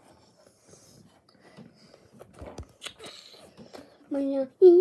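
Faint rustling and clicking of a phone being handled close to the microphone, then about four seconds in a child's voice starts with drawn-out, sing-song sounds.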